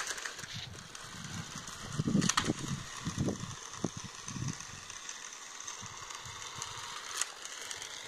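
Toy remote-control car's small electric motor and plastic gears whirring as it drives over gritty tarmac. A sharp click comes about two seconds in and another near the end.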